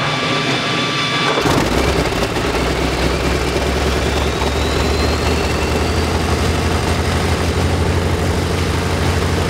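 Wright R-3350 18-cylinder twin-row radial engine starting up. A steady whine gives way about a second and a half in to the engine firing, and it then keeps running with a heavy, steady low rumble.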